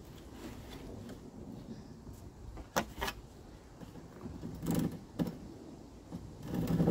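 Hand saw on an oriented strand board sheet as the cut is started: a few separate knocks and short scrapes, then regular back-and-forth sawing strokes through the board near the end.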